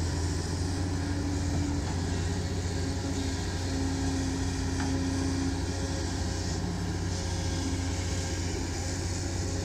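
Diesel engines of Kobelco hydraulic excavators running steadily under digging load, a low even drone with a faint wavering whine above it.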